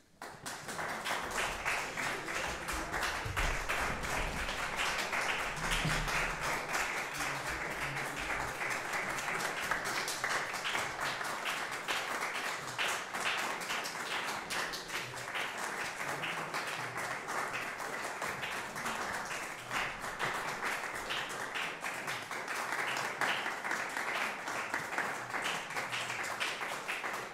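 Audience applauding: dense clapping that starts suddenly and keeps on steadily.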